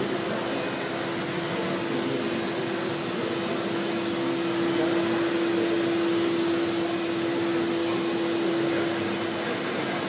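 Cleanfix RA 660 Navi robotic scrubber-dryer running: a steady whirring motor noise with a steady mid-pitched hum, which grows stronger about halfway through and fades near the end.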